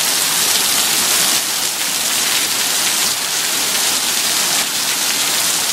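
Heavy rain pouring down: a steady, even hiss of downpour falling on a concrete driveway and parked cars.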